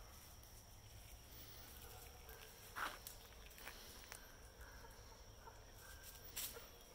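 Faint sounds of young chickens foraging: light scratching and pecking on the ground with a few short, soft calls, one slightly louder sound about three seconds in, over a faint steady high tone.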